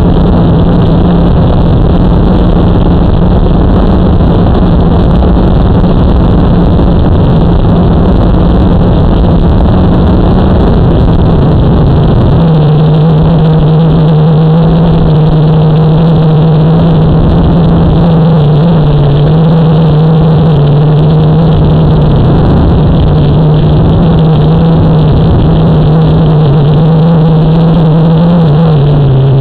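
Motor and propeller drone of a small aircraft hovering high up, loud and steady, with a constant hum under a rushing noise. About twelve seconds in, the low rumble drops away and the hum holds a slightly wavering pitch.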